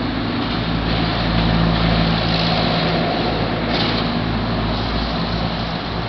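A motor vehicle's engine running close by: a steady hum over a rush of road noise, easing off near the end.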